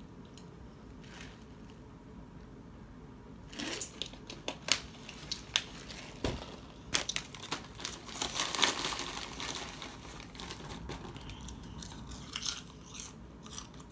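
Lay's potato chip bag crinkling and crackling as it is picked up and handled, starting a few seconds in with sharp crackles and strongest in the middle, before dying down near the end.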